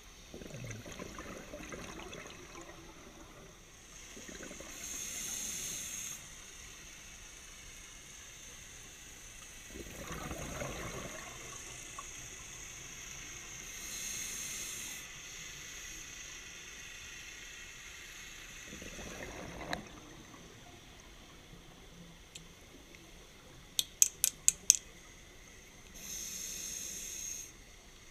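Scuba regulator breathing heard underwater: short hissing inhales alternating with rushes of exhaled bubbles, one breath about every ten seconds. A quick run of about six sharp clicks comes a little after the middle and is the loudest sound.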